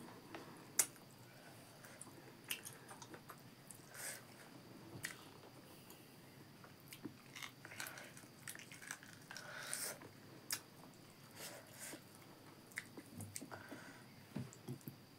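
Close-up chewing and biting: wet mouth clicks and smacks, with scattered sharp clicks, as a mouthful of rice and buffalo meat is eaten by hand.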